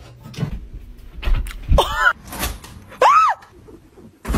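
A few dull thuds, then two short high-pitched shrieks, each rising and then falling in pitch, as a cat is suddenly startled.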